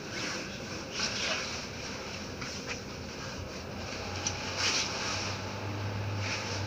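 Stadtbahn light-rail car standing still, heard in the driver's cab: a steady background hum with several brief hisses. A low hum comes in about five seconds in.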